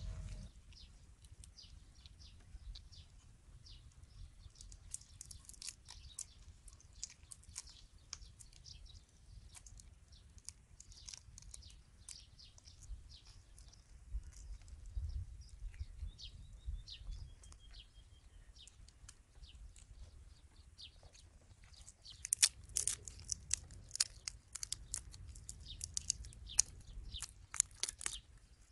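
Raw shrimp being peeled by hand: the shells crackle and snap in quick, irregular clicks, coming thick and fast from about two-thirds of the way in.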